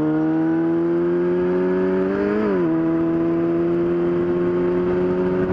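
Yamaha R6 sport bike's inline-four engine under way. It pulls with slowly rising revs, then upshifts about two and a half seconds in, and then runs at steady cruising revs.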